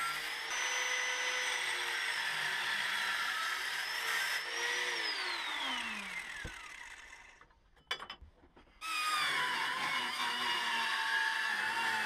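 Electric angle grinder cutting sheet steel with a steady whine; about four and a half seconds in it is released and spins down with a falling whine. After a brief lull with a couple of clicks, a pneumatic die grinder starts up and runs with a steady high whine.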